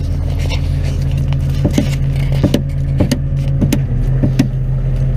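A fishing boat's engine running steadily, with a series of sharp knocks and rattles as mesh fish traps are handled on deck.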